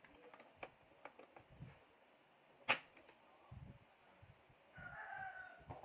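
Scattered small clicks and taps, with one loud sharp click near the middle. Then a rooster crows once briefly, for about a second, near the end.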